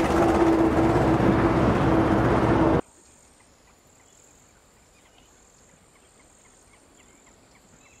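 An engine or motor running steadily with a loud hum, cut off abruptly about three seconds in; after that it is very quiet, with only a faint steady high whine and a few faint ticks.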